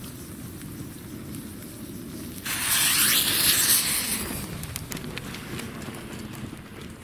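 A lit firework sputtering: a sudden loud hiss starts about two and a half seconds in, holds for a second or two and fades, over a low steady crackle of a small bonfire.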